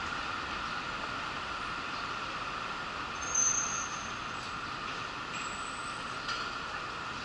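Steady background rumble of an elevated railway station platform, with a brief high-pitched squeal about three seconds in and a fainter high tone and a click near the end.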